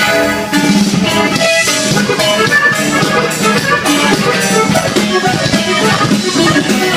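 Norteño band music with no singing: an instrumental passage led by accordion, with guitar.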